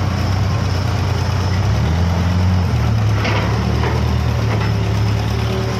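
Large hydraulic excavator diesel engine running while digging, its note shifting in pitch twice as the hydraulics take load. A light clank comes about halfway through.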